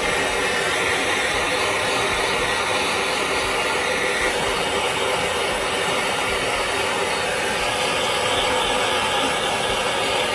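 Handheld propane torch burning with a steady hiss as its flame is passed over sugar-topped cookies, melting and browning the sugar into a brûlée crust.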